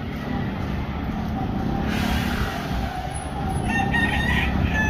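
A rooster crowing once, a long call starting a little past three seconds in and lasting about a second and a half, over a steady bed of alley street noise.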